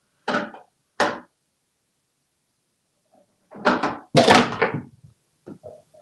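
A food bowl and toy balls knocked off a countertop by a parrot, clattering and thunking: two sharp knocks in the first second, then a louder burst of clattering about halfway through, with a few small taps near the end.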